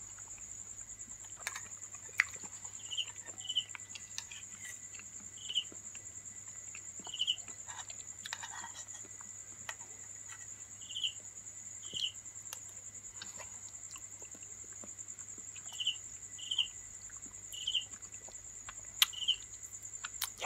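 Insects trilling steadily at a high pitch, with short chirps coming singly or in pairs every second or two. Scattered sharp clicks and soft mouth sounds from close-up chewing.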